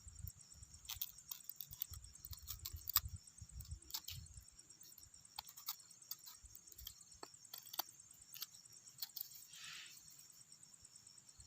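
Faint, steady high-pitched insect chirring, with scattered small clicks and taps of wooden sticks being handled as a bird-trap trigger is set. Soft low bumps of handling come through in the first few seconds, and there is a brief swish near the end.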